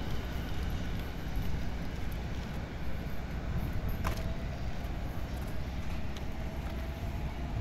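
Seibu 2000 series electric train standing at the platform, giving a low steady rumble. A sharp click comes about four seconds in, followed by a faint steady tone.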